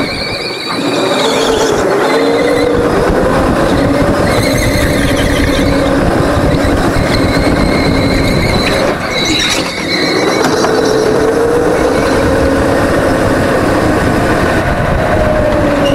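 Go-kart engine running hard through a lap, heard on board. Its pitch climbs and falls in long sweeps and drops away briefly twice, about half a second in and about nine seconds in.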